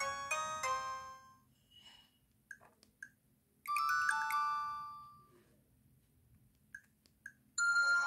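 Alcatel OneTouch S621 phone speaker playing its built-in ringtones one after another. A chiming melody fades out about a second and a half in, and after two short beeps a second chime ringtone starts and dies away. Two more short beeps follow, then a new, louder ringtone begins just before the end.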